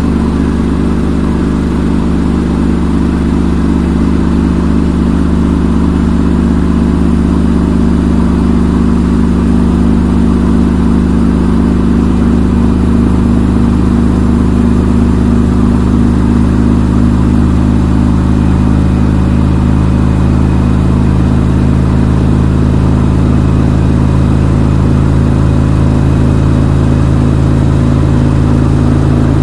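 Front-load washing machine in its spin cycle: the motor and drum running at speed with a steady, loud hum. About twelve seconds in, the hum deepens and takes on an even, regular throb.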